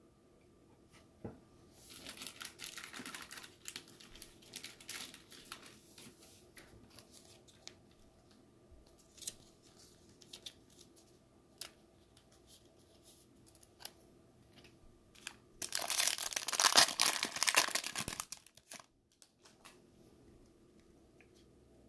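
Foil wrapper of a 2020 Mosaic football card pack crinkling and tearing as the pack is opened. Rustling a couple of seconds in, scattered small clicks, then a louder burst of tearing and crinkling for about three seconds near the end.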